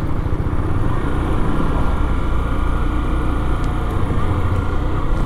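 Motorcycle engine running steadily at low cruising speed, with wind noise over the rider's microphone.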